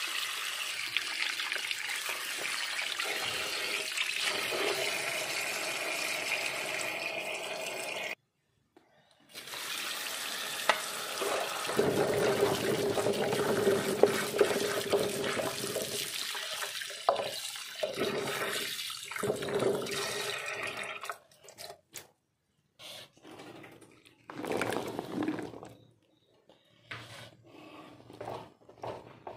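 Kitchen tap water running onto jolpai (Ceylon olives) in a plastic colander in a steel sink as they are washed by hand. The stream breaks off about eight seconds in and comes back louder. Near the end it gives way to scattered splashes.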